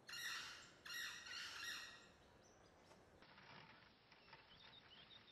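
A bird squawking in two runs of calls over the first two seconds, then only faint, short chirps of small birds.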